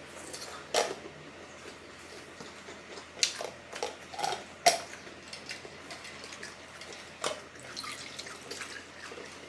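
Close-up eating sounds of spicy instant noodles being eaten: a string of short wet slurps and mouth smacks, irregularly spaced.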